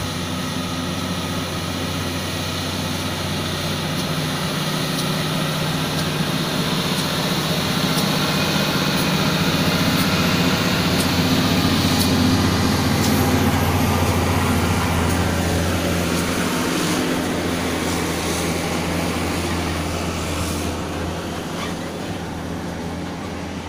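Volvo truck towing two side-tipper trailers drives past: a steady diesel engine drone that grows louder as it approaches, peaks about halfway through, then fades as the trailers roll away.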